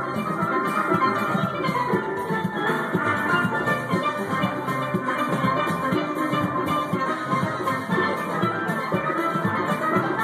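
A steel pan band playing a tune together: many pans ringing out at once over a steady percussion beat of about three strokes a second.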